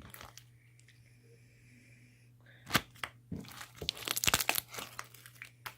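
Glittery slime being pressed into bubbles, the trapped air popping with sharp crackles: one crack a little before halfway, then a run of quick crackling pops.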